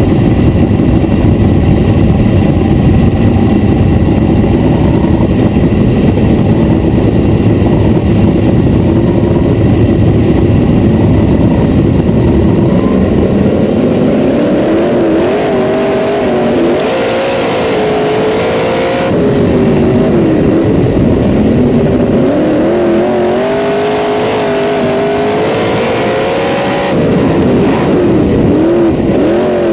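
Winged dirt-track sprint car engine at racing speed, recorded onboard the car with other sprint cars running close around it. The first half is a dense, even roar. From about halfway in, the engine's pitch rises and falls again and again as it revs up and backs off.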